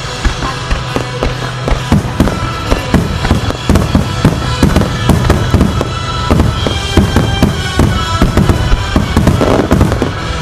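Starmine fireworks barrage: many shells bursting in quick succession, the bangs thickest from about two seconds in until near the end. Music plays underneath throughout.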